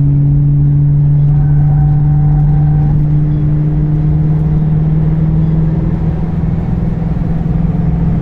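Ford Mustang engine pulling steadily under load as the car accelerates, a loud, even drone that rises slowly in pitch.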